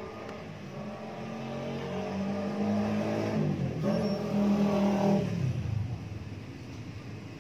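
A motor vehicle engine that grows louder over a few seconds, then drops in pitch and fades, as a vehicle passing by does.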